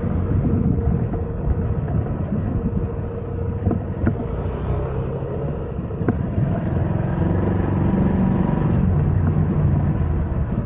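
TVS XL100 moped's single-cylinder four-stroke engine running, its note rising and falling, climbing higher for a couple of seconds near the middle of the stretch.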